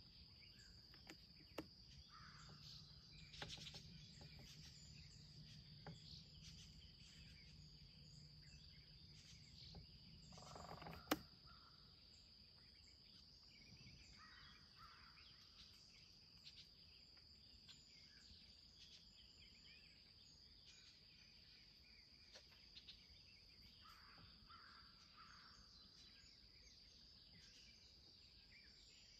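Faint outdoor ambience: a steady high-pitched insect drone with scattered bird chirps. A low hum runs for the first several seconds, and a single sharp click, the loudest sound, comes about 11 seconds in.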